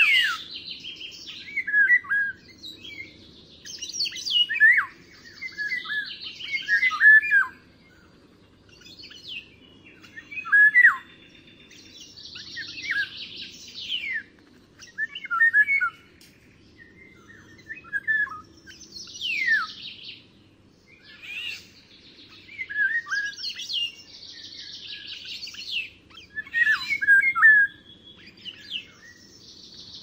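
Birds singing: phrases of short chirps, quick falling whistles and buzzy trills, repeating every couple of seconds.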